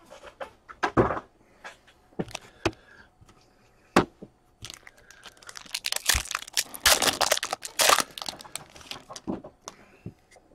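Trading-card handling: scattered sharp clicks and knocks of cards and plastic holders, then, about six seconds in, a stretch of crinkling and tearing as a hockey card pack wrapper is opened.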